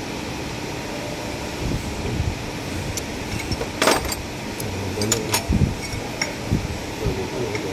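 A handful of sharp metallic clinks as a steel spanner knocks against the can seamer's rod and tooling, the loudest about four seconds in with a short ring, with a few soft knocks, over a steady machine hum.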